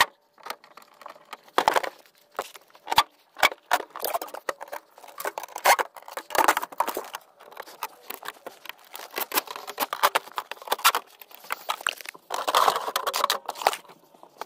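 Irregular clicks, clatter and rustling of hand work on a metal floor panel, a screwdriver working at its screws, with no power tool running.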